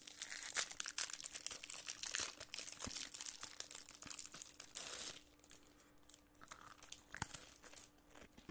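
A cracker packet's wrapper crinkling and rustling as it is pulled open by hand for about five seconds, then much quieter with a few faint clicks.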